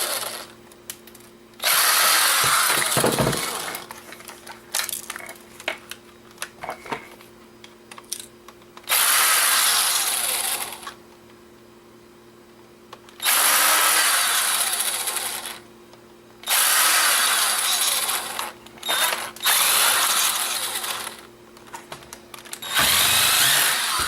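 Power screwdriver running in short runs of about two seconds, six times over, taking out the many tiny screws of an old camera's casing. Small clicks of handling come in the pauses between runs.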